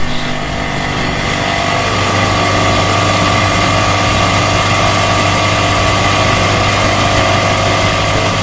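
K-Tools two-insert face mill taking a heavy full-width cut in 1018 steel plate at 1500 RPM, about 50 thousandths deep. The milling machine's spindle and cutter make a steady, loud machining noise with several steady whining tones held over it. It builds slightly in the first second and then holds level.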